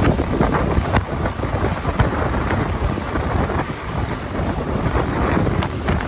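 Wind buffeting the microphone aboard a motorboat under way, a loud rumbling rush mixed with water rushing and splashing past the hull.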